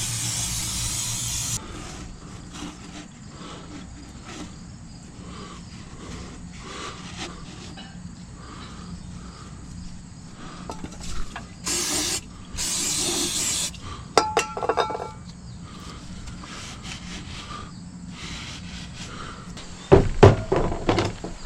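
Short hissing sprays from an aerosol can, three bursts: one at the start and two about 12 seconds in, each lasting up to a second and a half. A few clicks follow, then a quick run of loud metal knocks near the end.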